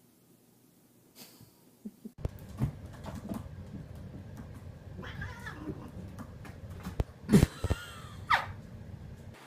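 A cat meowing and yowling, the last call falling in pitch, with a couple of knocks among the calls.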